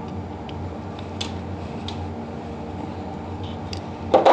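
Steady low background hum, with a few faint clicks and ticks from a push-in air fitting being screwed by hand into a pneumatic quick exhaust valve's port.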